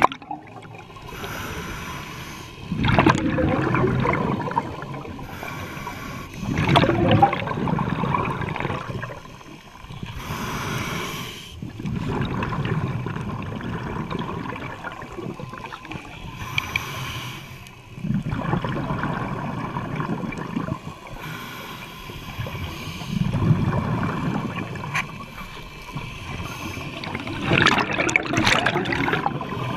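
Scuba diver breathing through a regulator underwater: a short hiss on each inhale, then a louder gurgling rush of exhaled bubbles, repeating about every five seconds.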